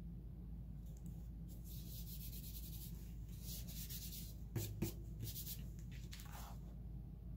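A hand rubbing and pressing a cardstock photo mat down onto a scrapbook page to set the glue: soft papery swishes on and off, with two sharp taps just before five seconds in.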